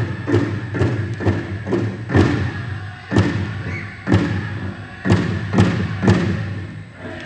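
Powwow drum group striking a large bass drum in a steady beat, about two strokes a second, with a few heavier accented strokes; the beating fades out near the end.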